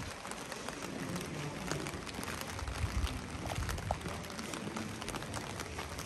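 Rain pattering on wet paving: an even hiss with many small drop ticks, over a low rumble.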